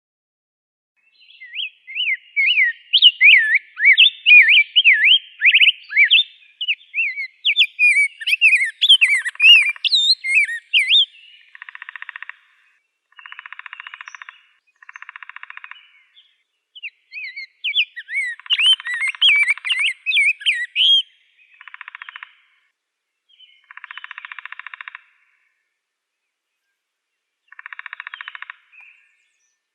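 Rose-breasted grosbeak singing: two long bouts of rich, fast warbled whistled phrases. Between and after the bouts come separate buzzy notes of about a second each.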